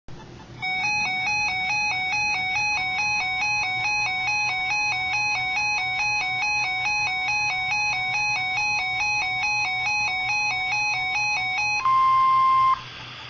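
Electronic alert tone: a buzzy two-note warble stepping back and forth between a lower and a slightly higher pitch several times a second for about eleven seconds. It is cut off by a short, louder steady beep of under a second, followed by faint radio hiss.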